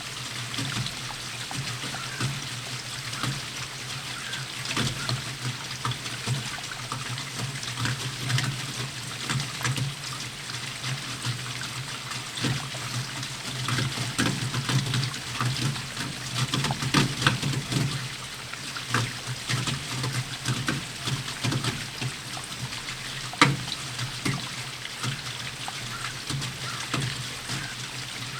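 Steady rain falling, with many separate drops striking close by in an even patter and one sharper drop hit about two-thirds of the way through.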